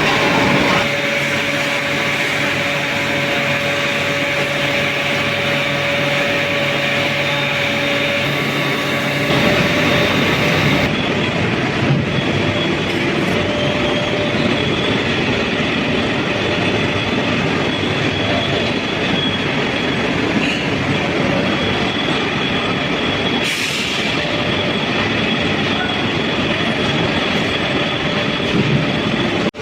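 Steady, loud industrial noise of a steel melting shop: machinery rumble with a steady hum tone running through it. The sound changes abruptly about nine, eleven and twenty-three seconds in.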